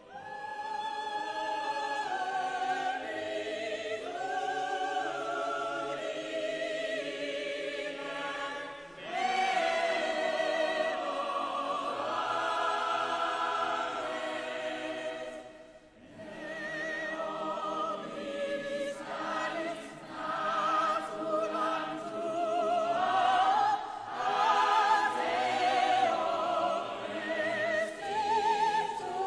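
Choral music in an operatic style: several voices sing sustained notes with strong vibrato. It swells about nine seconds in, drops away briefly around sixteen seconds, then resumes.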